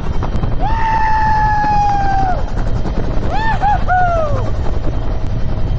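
UH-1 Huey turbine helicopter in flight, its two-bladed main rotor and engine making a dense, rapid thumping rumble through the open cabin door. Over it sound a long held note that falls slightly near the start, then a short run of rising-and-falling notes in the middle.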